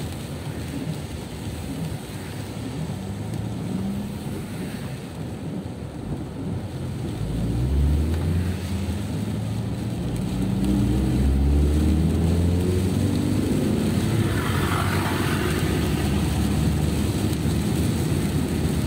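Car engine heard from inside the cabin while driving in heavy rain, over a steady hiss of rain and tyres on a wet road. The engine note rises in pitch several times as the car accelerates through the gears, and is loudest from about the middle of the stretch onward.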